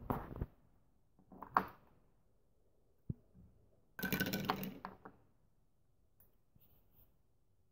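Hard plastic Blender Bottle lids and storage containers clicking and knocking against each other and the tabletop as they are handled. There are a few knocks at the start, another about a second and a half in, and a single sharp tap about three seconds in. A busier clatter follows about four seconds in.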